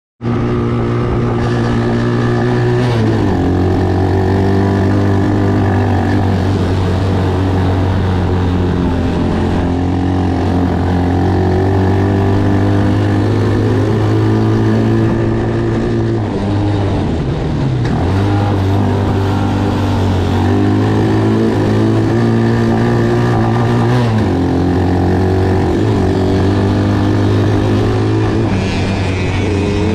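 Taotao ATV engine running steadily under throttle on a dirt trail. Its pitch dips and climbs back a few times as the throttle is eased off and reopened, and rises near the end.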